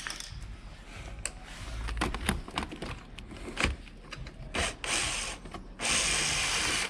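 Cordless power driver undoing a nut, running in two short spells in the second half after a few clicks and knocks of the tool being handled.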